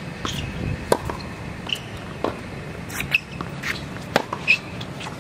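Tennis rally on a hard court: a string of sharp pops from racket strikes and ball bounces, about one a second, with short sneaker squeaks on the court surface between them.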